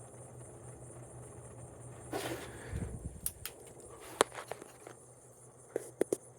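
1993 Windsor and Browne Cambridge ceiling fan running on high, with a steady low motor hum and a faint high whine. About two seconds in there is a rustle, followed by a string of sharp clicks and knocks that run to near the end.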